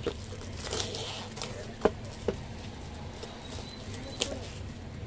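Hands handling a cardboard box: a short rustle about a second in, then three sharp taps and knocks, the loudest just under two seconds in, over a steady low hum.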